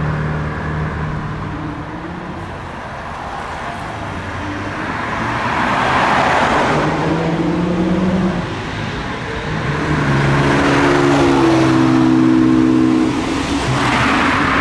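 Italian car engines accelerating past. The engine pitch climbs, breaks and drops as the gears change, and it swells loudest about halfway through and again near the end.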